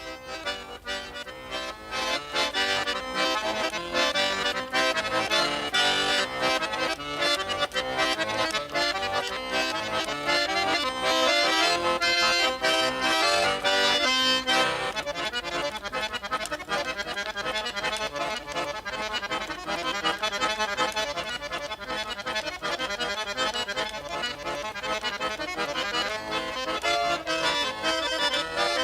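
Accordion playing a folk-song melody with chords in an instrumental interlude between verses. The texture changes about halfway through.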